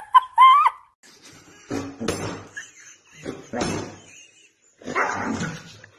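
Siberian huskies vocalizing at each other: three rough, grumbling bursts about a second and a half apart. A short, high, wavering cry comes at the very start.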